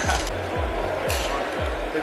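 Music with a steady, fast bass beat over the hum of a busy hall, with a short sharp click about a second in.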